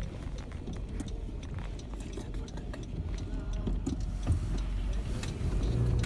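A car being driven, with a steady low engine and road rumble and scattered light clicks and ticks; the rumble grows louder near the end.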